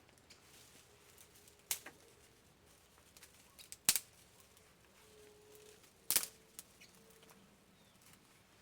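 Mostly quiet, with three sharp clicks or knocks about two seconds apart and a few fainter ticks.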